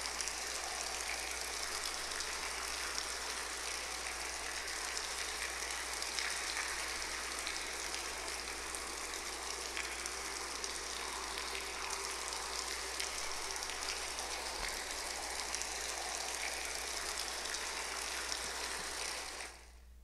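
A steady, even hiss of noise, like rain, with no voices or music, that stops abruptly near the end.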